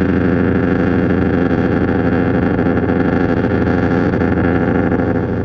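Loud, steady intro music with distorted electric guitar.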